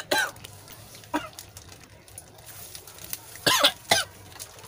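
A person's voice in short bursts without words: a brief one about a second in, then two louder ones close together near the end.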